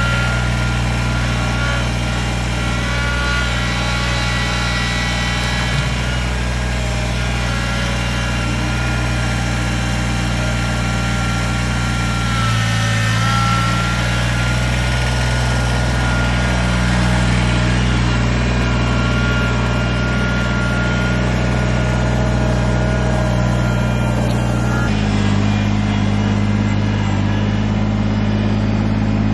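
Kubota BX2380 compact tractor's three-cylinder diesel engine running steadily while the tractor works its front-end loader, with a thin steady whine above the engine note. The engine sound shifts about 25 seconds in.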